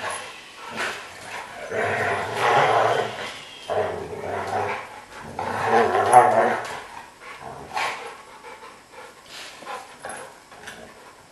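Dogs vocalizing in three long growly, barking bouts a couple of seconds apart, then only scattered light clicks and knocks.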